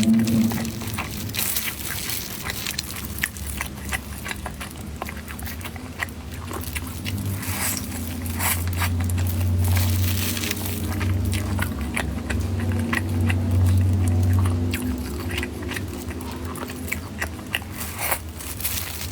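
Close-miked eating: irregular crunchy bites and chewing, over a low steady hum.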